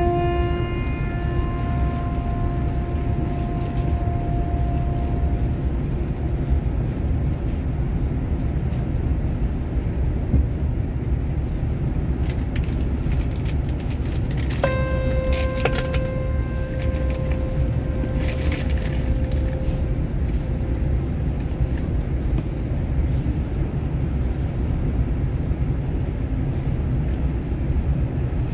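Steady low rumble of a double-decker bus cruising on the highway, heard from inside the cabin. A bell-like chime rings out and slowly fades twice, at the start and about halfway through.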